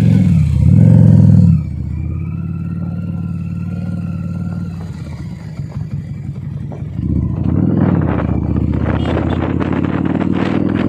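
Motorcycle engine heard from the rider's seat while riding: loud and changing pitch for the first second and a half, then running steadily, picking up again about seven seconds in as it accelerates, with wind rushing over the microphone toward the end.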